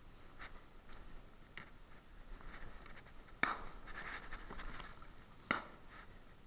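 Light knocks, scrapes and rustling of gear being handled in an inflatable PVC boat, with two sharp knocks, one about halfway through and a louder one near the end.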